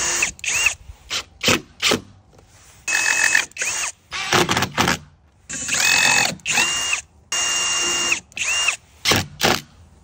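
A cordless drill-driver drives screws in short runs, each roughly half a second to a second long, with a steady motor whine. Quick clusters of sharp clicks sound between the runs.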